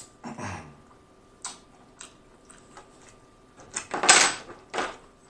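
Eating and food-handling sounds: a brief low hum with falling pitch and small lip smacks near the start, then a loud rustling burst about four seconds in and a shorter one near the end as hands move over the pile of fried chicken.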